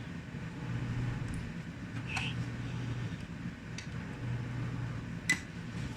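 A few light clicks and taps of a flat-head screwdriver on laptop plastic, one with a short ring about two seconds in and the sharpest about five seconds in, over a steady low hum.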